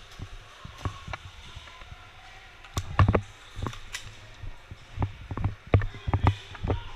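Scattered low thumps and sharp clicks at an uneven pace, quieter for a couple of seconds after the first second, then picking up again.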